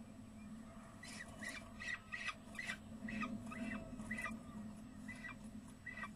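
Peregrine falcon calls at the nest during feeding: a run of about ten short, sharp calls, two or three a second, starting about a second in, over a steady low electrical hum.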